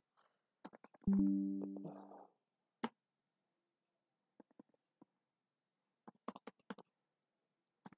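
Computer keyboard keys clicking in scattered single presses and short runs as text is deleted in an editor. About a second in, a brief tone held at one pitch fades out over about a second.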